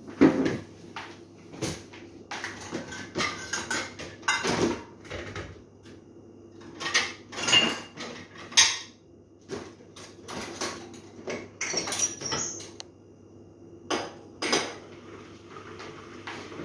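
Kitchenware being handled: an irregular run of clinks and knocks of dishes and utensils, some sharp and ringing, over a low steady hum.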